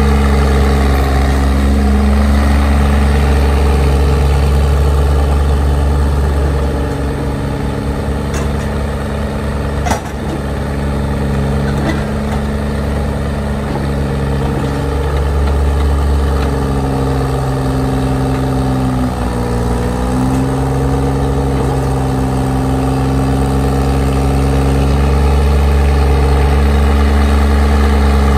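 Engine of a Lima cable shovel running steadily as the machine digs and swings. Its note sags and then recovers about two-thirds of the way through as it takes the load. A single sharp clank comes about a third of the way in.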